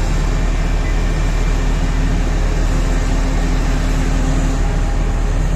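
Heavy diesel machinery running steadily: the Volvo EC950E crawler excavator working a bucket load at the rock pile, with the Belaz haul truck idling alongside, making one dense, even drone.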